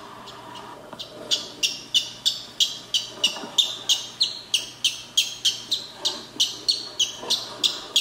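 A hatching chick peeping from inside its cracked egg: short, high peeps about three a second, starting about a second in.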